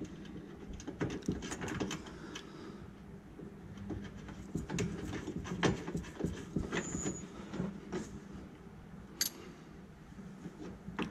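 Irregular light metallic clicks and knocks from hands working a bolt and the steel bracket and link of a Club Car golf cart's rear suspension during reassembly, over a low steady hum.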